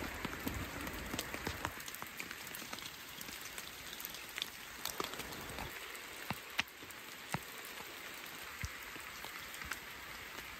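Steady rain falling on a tarp: an even hiss with scattered single drops ticking sharply on it.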